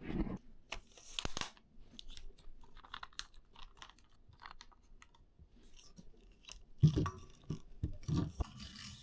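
Handling noises from an Ulanzi Zero F38 travel tripod being adjusted and extended: scattered clicks, taps and scrapes of its metal parts, with a louder knock about seven seconds in.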